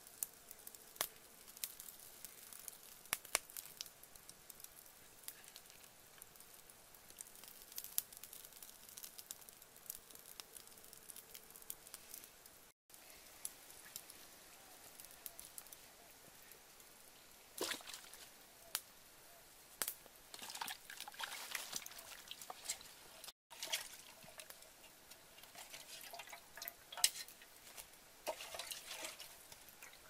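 Faint crackling and scattered sharp pops from a small charcoal and wood fire, then, later on, uneven bursts of splashing and dripping water.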